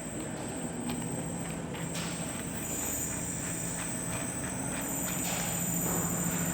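A lathe running steadily, with a low hum and a high whine over a noisy background.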